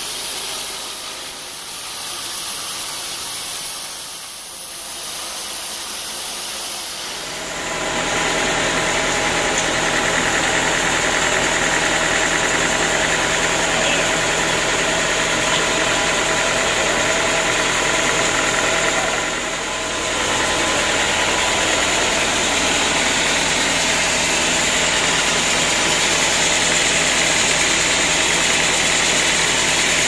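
Band sawmill running: a steady machine drone with hiss. It grows much louder about seven and a half seconds in and dips briefly about two-thirds of the way through.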